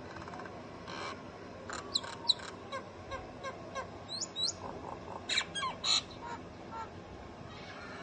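A myna calling: a varied run of clicks, chatter notes and short whistles, with two quick rising whistles about four seconds in.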